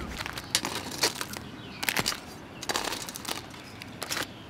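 Metal serving tongs clicking and scraping against the hard shells of cooked crabs and the plate as the crabs are stacked: an irregular scatter of short clicks and rustles, a few each second.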